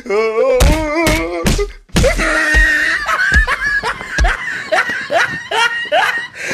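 Laughter in repeated rising peals, with a few low thumps in the first two seconds or so.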